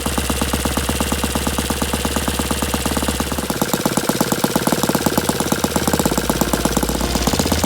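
Saito FA-120S four-stroke glow model aircraft engine running on a test run, firing in a rapid, even rhythm.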